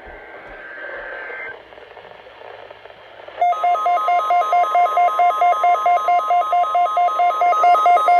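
Hissing weather-radio static, then about three and a half seconds in a loud NOAA Weather Radio 1050 Hz warning alarm tone starts suddenly. Over the steady tone runs a beep pulsing about four times a second. The tone marks the weekly test of the warning alarm.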